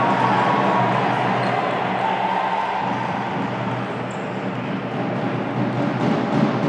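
Echoing sports-hall noise of a futsal match, with the ball bouncing and thudding on the wooden court.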